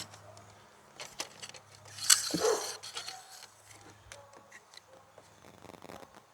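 Handling noises from fitting a plastic shore power hatch into a pop-up camper's wall: scattered light clicks and taps, with one louder brief scrape about two seconds in.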